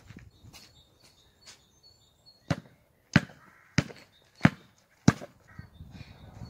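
Basketball dribbled on asphalt: a couple of seconds of only faint taps, then five sharp bounces in a steady rhythm about two-thirds of a second apart.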